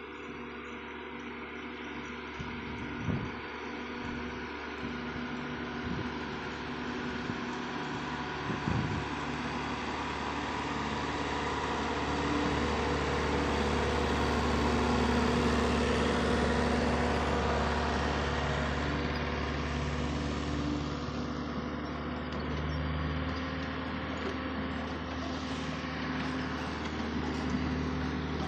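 Engines of a line of vintage Massey Ferguson tractors running steadily, growing louder toward the middle and easing off, with a couple of faint knocks in the first few seconds.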